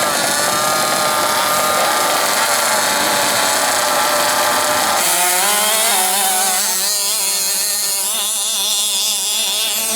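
Small two-stroke petrol engine of an FG large-scale RC monster truck running hard, its pitch wavering up and down with the throttle. About halfway through, the low rumble drops away, leaving a thinner, higher buzz.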